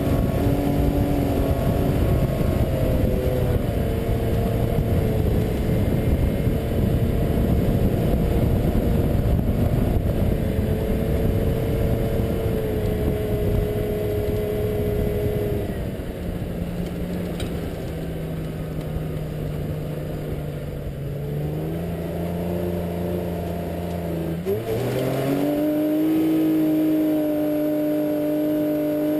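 Mitsubishi Pajero's V6 engine pulling the 4x4 along a snowy track, with rough tyre and road noise under a steady engine note. About two-thirds of the way through the noise eases, then the engine revs up quickly and holds a higher, steady note.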